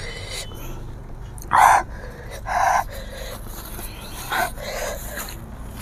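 A woman panting with a few sharp breaths through the open mouth, the first two the loudest, as she cools her mouth after hot chili sauce.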